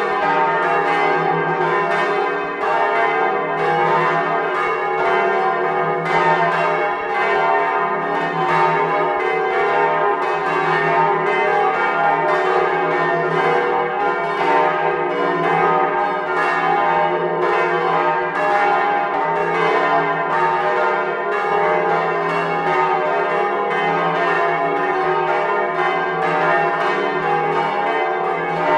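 Swinging bronze church bells ringing together in the belfry, heard close up: a continuous, dense peal of overlapping strikes with many tones sounding at once.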